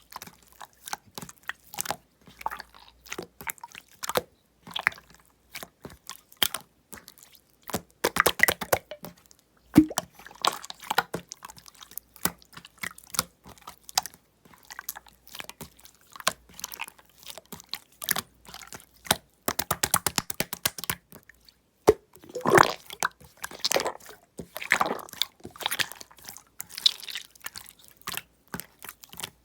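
Aloe soothing gel slime being squished and pressed by hand: a steady run of wet clicks and small pops, with quick dense rattles of clicks now and then.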